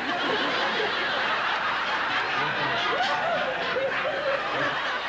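Studio audience and cast laughing together, a steady wash of many people's laughter with a few single laughs standing out.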